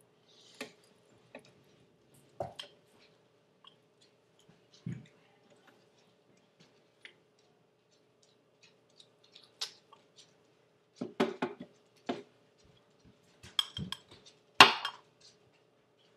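Scattered clinks, taps and scrapes of a spoon and measuring cup against a blender jar as an ingredient is scooped in, with a cluster of knocks a little past the middle and the loudest knock near the end. A faint steady hum runs underneath.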